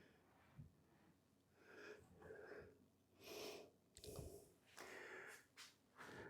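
Near silence, with a few faint, short, soft noises.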